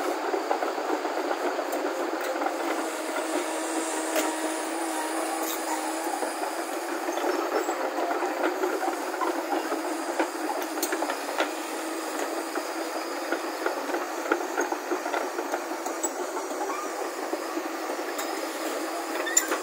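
JCB crawler excavator's diesel engine running steadily under hydraulic load as the bucket works a rock face, with scattered sharp clinks and knocks of rock and steel.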